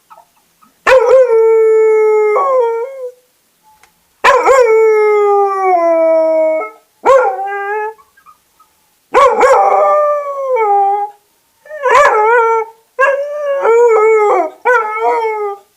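Dog howling in a series of long howls, the first held about two seconds with a drop in pitch at the end, the later ones shorter and wavering. The howling is set off by the squeak of a window pane being rubbed clean.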